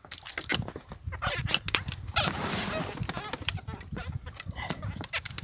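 Clicks and knocks of fishing line and a homemade pike float being handled aboard an inflatable boat, over a steady wind rumble on the microphone, with a brief hissing rush about two seconds in.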